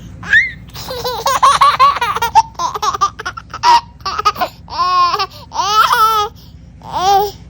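A young child laughing in a string of high-pitched bursts and squeals, with short pauses between them.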